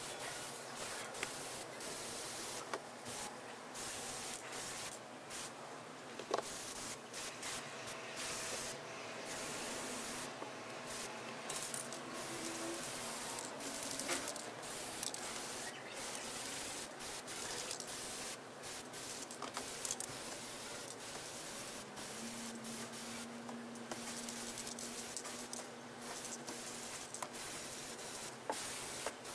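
Aerosol spray paint can hissing in repeated bursts, with short breaks between passes and an occasional faint click.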